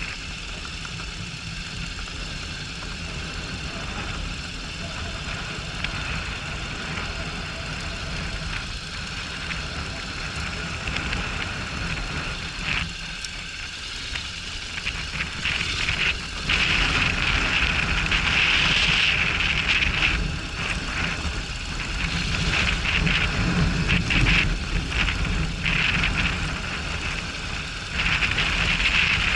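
Honda NC750X parallel-twin engine running as the motorcycle rides off road, under a rushing noise of wind and rough ground on the camera microphone that gets louder in long stretches over the second half.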